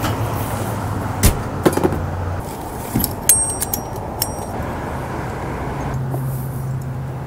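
Steady low motor hum, with a few sharp knocks and a brief run of light metallic clinks about three to four seconds in.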